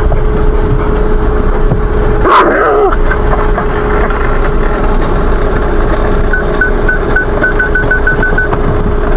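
Vehicle cabin with the engine running as it is manoeuvred into a bay, a steady low rumble with a constant hum. A brief wavering squeal about two seconds in. From about six seconds, a run of short high parking-sensor beeps that come faster and faster, closing on an obstacle.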